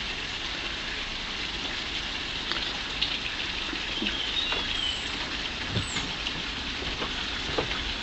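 Steady outdoor background hiss with scattered faint ticks, and a couple of faint bird whistles around the middle.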